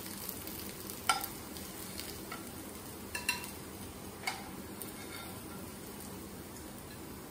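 Cutlets frying in shallow oil in a non-stick pan, a steady soft sizzle, with a few short clicks of a spatula against the pan as they are lifted out, about a second in, around three seconds and just after four seconds.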